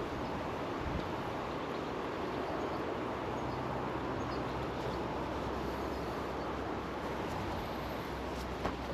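Steady rushing outdoor noise of river water and wind, with a faint low hum underneath.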